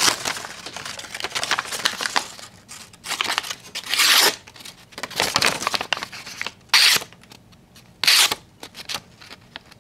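The razor-sharp 440 stainless blade of a Maserin ARM-1 folding knife slicing through a hand-held sheet of scrap paper. Paper rustles as it is handled, then several short slicing strokes follow from about three seconds in to about eight seconds in, the longest and loudest about four seconds in.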